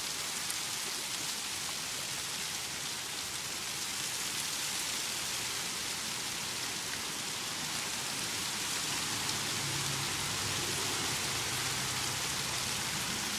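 Steady heavy rain falling and pattering on surfaces, with a faint low hum coming in during the second half.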